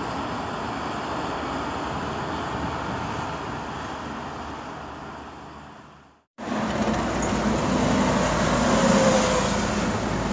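Steady rushing noise that fades away about six seconds in; after a brief silence a louder rumbling noise starts abruptly, with a low hum and a short falling whine near the end.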